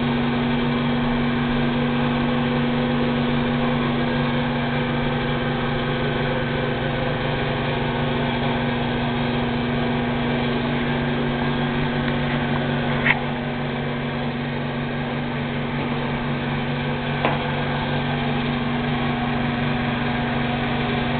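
Steady machine-like hum with a constant low drone and hiss. Two short clicks break it, one about thirteen seconds in and a fainter one about four seconds later.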